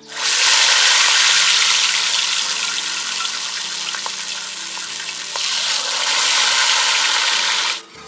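Battered leaves deep-frying in hot oil, a loud, steady sizzle that starts suddenly as they go in, eases a little midway, swells again and cuts off abruptly near the end.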